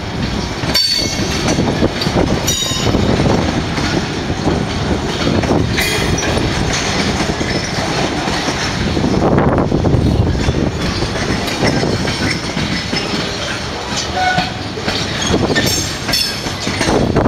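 Freight train of tank cars and covered hoppers rolling slowly past: the steady rumble and clatter of steel wheels over the rails, with short high-pitched metal squeals several times.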